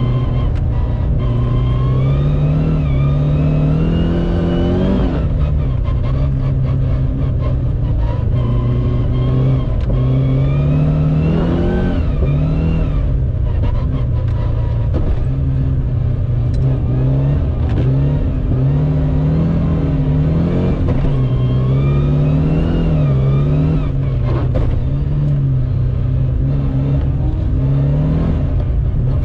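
Mitsubishi Lancer Evolution's turbocharged four-cylinder engine heard from inside the car, revving up through the gears several times and dropping back between shifts as it drives on a snowy road.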